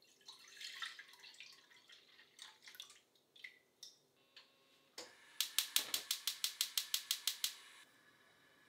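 Liquid poured from a glass measuring jug into a stainless steel saucepan, splashing and trickling. About five seconds in there is a knock, then a gas hob's igniter clicks rapidly, about seven clicks a second for two seconds, until the burner lights.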